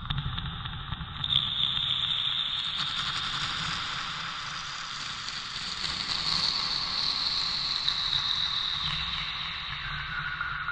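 Modular synthesizer noise patch: a toothbrush scrubbing the Mutable Instruments/Music Thing Ears contact-mic module, whose gate clocks a noise/sample-and-hold module, giving a dense crackling hiss with high ringing tones. It is run through a tape echo and reverb, and the loudest ringing tone shifts lower near the end.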